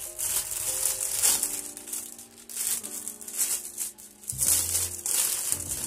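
Clear plastic bag crinkling and rustling as it is pulled open and handled, in short repeated crackles.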